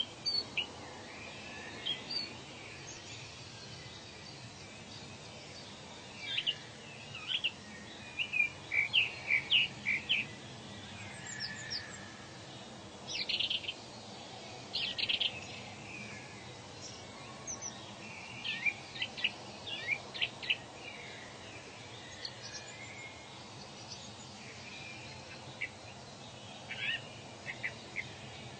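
Wild birds chirping and calling, in clusters of quick high notes every few seconds, over a steady faint background hiss.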